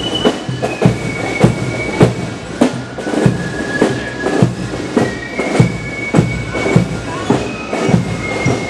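Marching-band music: a steady drum beat of about two strokes a second under high, held wind-instrument notes that step from one pitch to the next.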